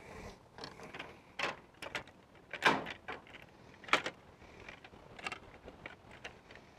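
Clear plastic table-saw blade guard assembly being handled, giving about eight light, irregular plastic clicks and knocks.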